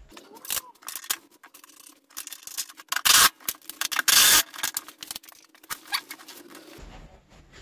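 Cordless power driver running lock nuts down onto the seat mounting studs in two short bursts, about three and four seconds in. Light clicks and scrapes of washers, nuts and plastic parts being handled come between them.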